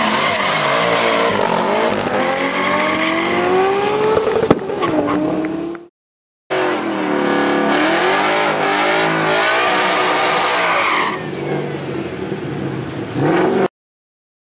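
Car engine revving hard with the rear tyres spinning in a burnout, the engine pitch climbing and dipping over a hiss of tyre noise. It is a Ford Mustang. The sound cuts off into silence twice, about six seconds in and near the end.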